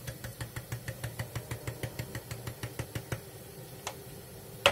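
A tin of ground paprika shaken over a saucepan, giving a quick run of light taps, about seven a second, that stops about three seconds in. A single sharp knock near the end.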